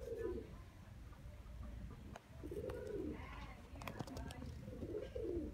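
Pigeon cooing: three low, rising-and-falling calls about two and a half seconds apart, with a few faint clicks around four seconds in.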